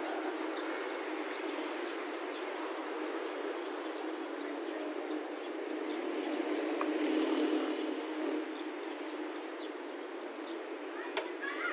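Steady street traffic noise, louder for a moment about seven seconds in as a vehicle passes close by. A single sharp click near the end.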